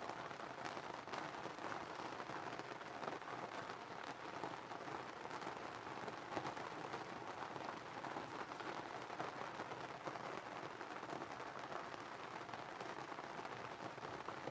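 Steady low background hiss with faint scattered ticks, and no speech.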